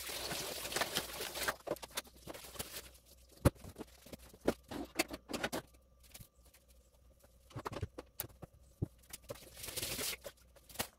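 Dishes and utensils clinking and clattering in a kitchen sink during washing up, with the tap running at the start and again near the end.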